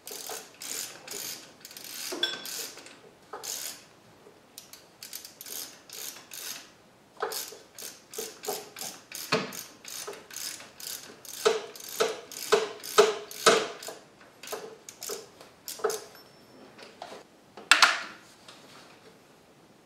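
Stubby hand ratchet clicking in short, uneven runs of strokes as the 14 mm lower mounting bolt of the alternator is worked loose. There is one louder metal knock near the end.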